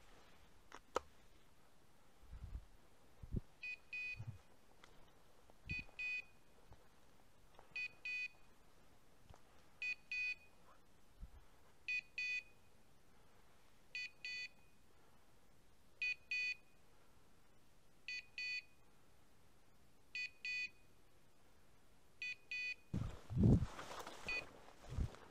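A hunting dog's beeper collar sounds its point signal, a short double beep about every two seconds, which means the setter is standing on point. Near the end there is loud rustling and footfalls through dry bracken.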